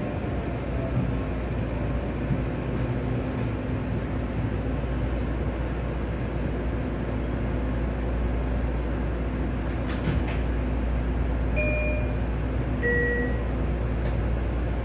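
Electric commuter train heard from inside the car, rolling along with a steady low rumble and hum. A faint falling whine comes at the start, and two short tones, each lower than the one before, sound near the end.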